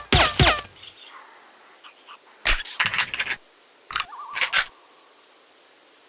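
Suppressed Smith & Wesson Model 39 pistol sound effect: two quick shots, each a sharp crack with a falling whistle. These are followed, about two and a half and four seconds in, by bursts of sharp metallic clicks and clatter, the last with a brief ring.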